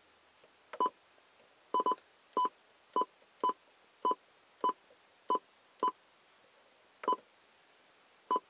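Cobra 29 LX CB radio's key beeps: a short electronic beep with each press or turn of the menu controls as the menu is scrolled through to Radio Check. About a dozen beeps come at irregular half-second intervals, with a quick double beep near two seconds in.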